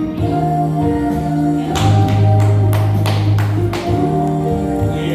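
Live band playing a slow R&B ballad without vocals: held chords over a bass line, with a run of about six drum and cymbal hits in the middle.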